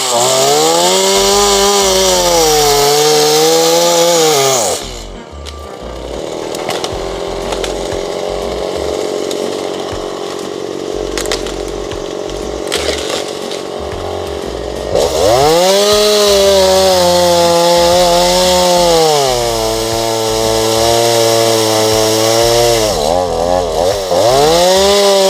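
Two-stroke chainsaw working at high revs on fallen trees. The engine pitch drops and quietens from about five seconds in, climbs again at about fifteen seconds, and dips and rises once more near the end.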